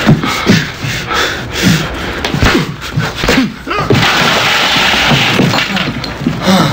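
Fistfight: punches landing and scuffling, with short grunts from the fighters. About four seconds in there is a longer crash and clatter as one man is knocked into a desk.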